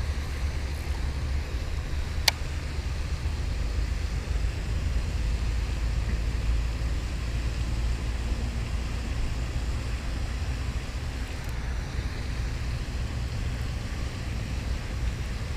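Steady low outdoor rumble, with one sharp click about two seconds in.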